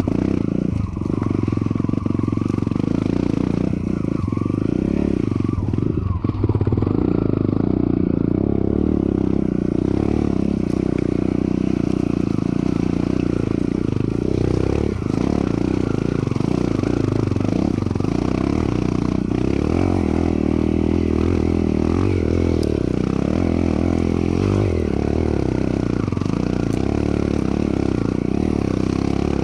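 Enduro dirt bike engine running steadily while the bike is ridden over a rocky trail, with a few sharp knocks.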